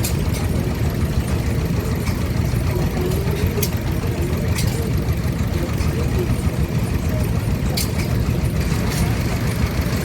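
Vintage stationary engine running steadily, with a few sharp clicks now and then.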